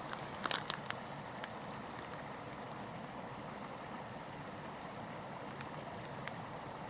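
Steady rush of a stream's flowing water, with a few light clicks of handling in the first second.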